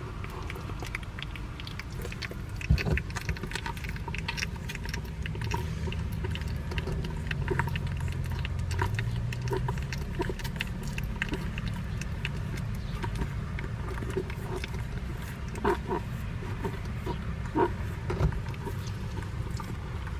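Eleven-day-old Shiba Inu puppies suckling at their mother, with many small smacking clicks and a few short squeaky grunts near the end, over a low rumble.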